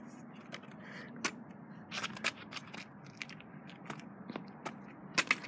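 Kick scooter being handled close to the microphone on pavement: scattered clicks, light knocks and scrapes of its parts, with a quick pair of sharper clicks near the end.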